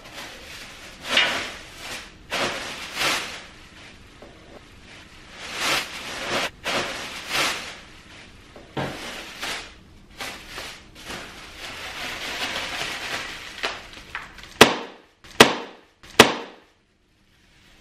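Plastic air-pillow packing and cardboard rustling in repeated bursts as packing material is pulled out of a shipping box, then three sharp clicks near the end.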